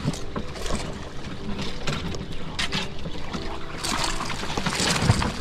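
Water splashing and sloshing at the surface, busiest and loudest about four to five seconds in.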